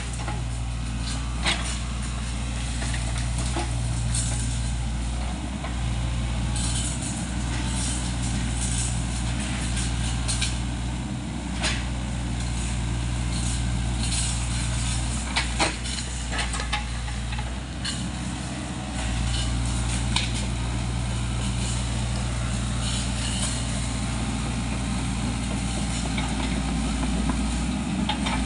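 A SANY compact excavator's diesel engine runs steadily under work, its note changing briefly about halfway through. Scattered sharp clicks and cracks come through over it.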